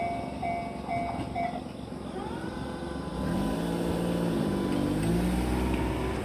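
Railway level-crossing warning bell ringing its repeated electronic ding about twice a second, stopping about a second and a half in once the train has passed. Then a motor vehicle's engine rises in pitch and runs on, dipping and rising again.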